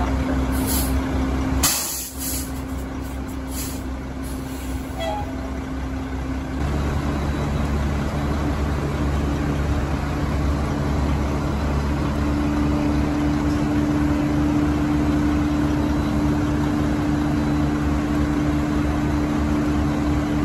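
Fire engine's diesel engine running with a steady drone, broken by a short loud hiss about two seconds in. About six and a half seconds in, the engine note steps up to a louder, fuller pitch and holds there.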